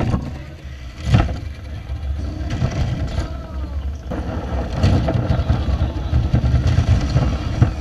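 A LEGO train crashing off its track: a sharp plastic impact right at the start and another about a second later as the cars tumble. From about four and a half seconds in, a LEGO train rolls past close by with a steady low rumble of wheels on plastic track, over a murmur of voices.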